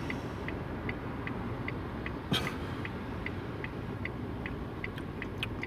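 Car indicator relay ticking steadily, about two and a half clicks a second, over a low steady rumble, with one louder knock a little over two seconds in.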